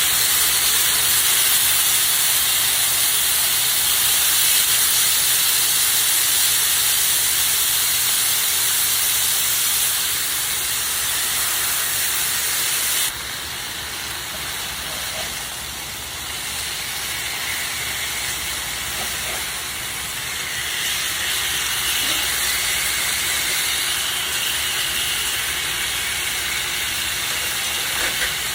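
Chicken breasts sizzling steadily in a hot sauté pan, frying in their own olive-oil and lemon-juice coating. The sizzle drops suddenly in level about halfway through.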